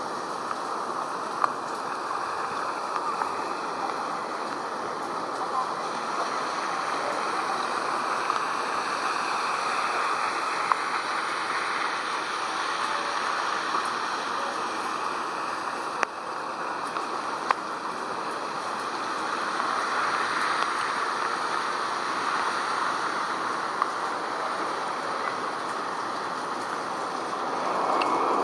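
Steady rushing jet noise from an Embraer 175 regional airliner's turbofan engines as it approaches to land. The noise swells slowly and grows louder near the end. A few faint clicks sound over it.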